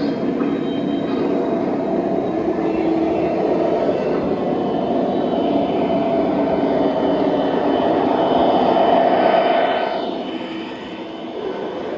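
O-gauge three-rail model train running on the layout: a steady mechanical whine and rolling rumble that builds as it nears, then falls away sharply about ten seconds in as it passes.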